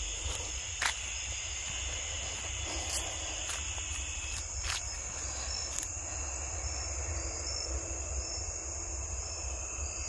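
Steady high-pitched chorus of evening insects in the woods, with a few light clicks over it.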